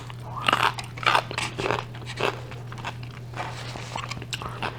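Close-miked chewing and crunching of a mouthful of gyro, a run of irregular, wet mouth sounds.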